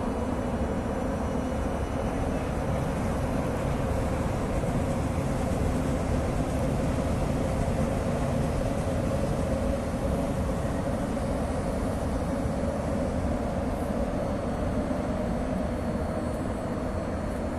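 Steady rumbling drone of vehicle traffic, with a faint hum running through it, swelling slightly midway.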